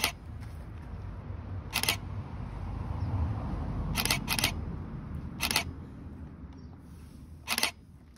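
Camera shutter clicking about six times at irregular intervals, two of them in quick succession near the middle, over a low rumble.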